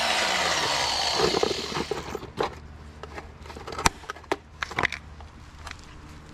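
Hand tools working on a car's engine bay: scattered sharp metallic clicks and knocks over a faint steady hum. In the first two seconds a hiss with a falling sweep fades away.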